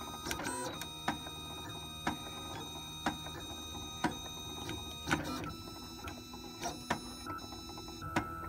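Homemade 3D food printer running while it prints in ketchup. Its stepper motors whine in several steady tones that shift pitch about halfway through as the head changes direction, with a light click about once a second.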